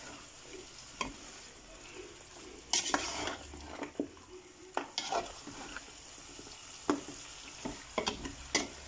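A spoon stirring raw chicken pieces through a thick curry masala in a large metal pot, with wet squelches and scrapes and knocks against the pot every second or two. A faint steady sizzle of the pot on the heat runs underneath.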